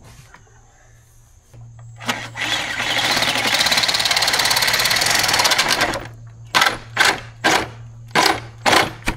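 Power drill boring an anchor hole in the wall. The motor starts about a second and a half in and drills steadily for about four seconds, then runs in about six short bursts roughly half a second apart.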